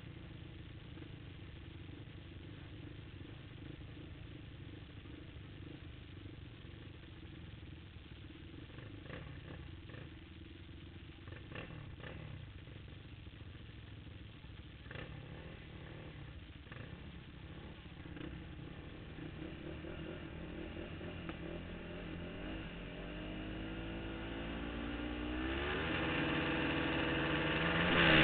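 Racing quad engines idling on the start line, with a few faint clicks in between; over the last few seconds the engines are revved harder and rise in pitch and loudness, the pre-start revving just before the gate drops.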